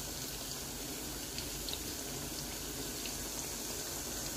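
Spinach pakoras deep-frying in a kadai of hot oil: a steady sizzle with scattered small crackles. The pakoras are still cooking through and not yet done.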